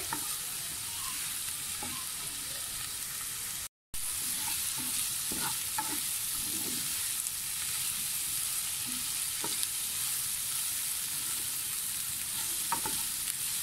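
Chopped onions frying in oil in a pan over medium heat, a steady sizzle, with a wooden spatula scraping and knocking against the pan now and then as they are stirred. The onions are being sautéed to cook off their raw flavour. The sound cuts out briefly just before four seconds in.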